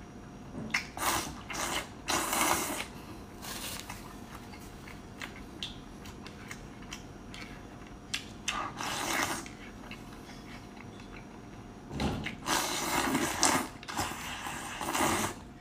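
A person slurping noodles from a bowl of beef noodle soup: a series of loud sucking slurps, several short ones in the first few seconds, one about nine seconds in, and a longer run near the end.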